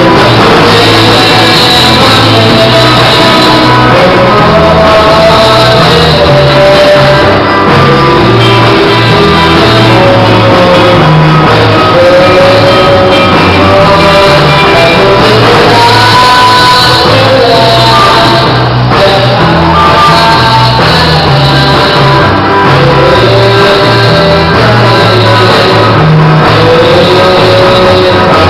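Rock band playing a song, with a sung lead vocal over guitar, bass and drums.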